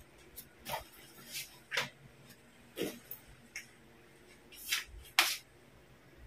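Things being handled close to the microphone: a series of about six short rustles and scrapes, the loudest about five seconds in.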